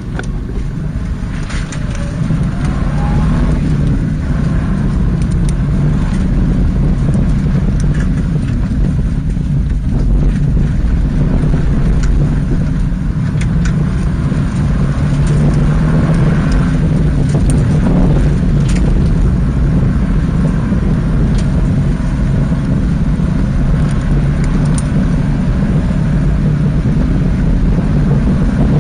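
Subaru Impreza rally car driving on a gravel stage, heard from inside the cabin: steady engine and road noise, building over the first few seconds and then holding, with scattered sharp ticks from stones hitting the car.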